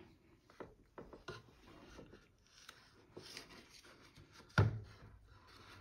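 Cross-stitch needle and thread worked through fabric: soft rubbing and scattered small clicks, with one louder knock near the end.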